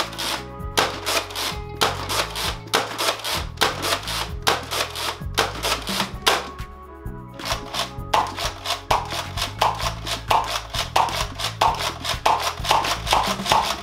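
Background music with a steady beat and bass line.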